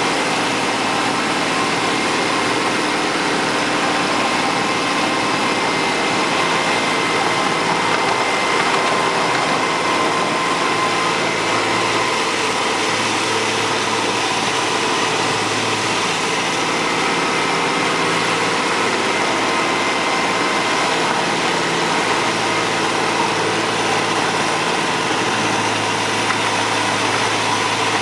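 7¼ inch gauge miniature GP40-outline locomotive running steadily as it hauls the train along. There is a continuous mechanical running noise with a steady high whine, and a low hum that grows stronger about halfway through.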